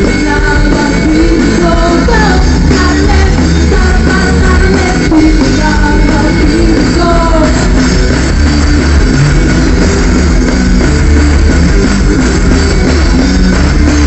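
Live pop-rock band playing loud through the PA, a woman singing the melody over drums, guitar and heavy bass, heard from the crowd.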